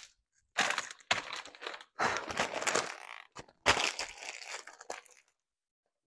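A fork stirring stovetop stuffing mix in a pot: four or five rough, crunching strokes with short breaks between them.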